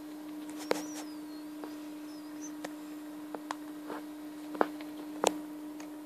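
Scattered sharp clicks of keys pressed on a netbook keyboard, a few a few seconds apart with the two strongest near the end, over a steady low hum.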